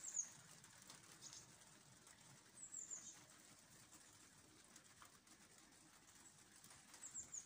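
Faint chirping of small songbirds: short runs of high, quickly falling notes, three times, at the start, about three seconds in, and near the end, over a quiet background.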